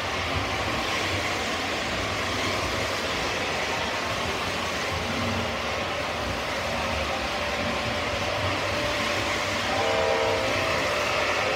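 O scale model trains running on the layout track, a steady rumble of motors and wheels. It grows a little louder about ten seconds in as a train passes close, with a brief horn tone at that moment.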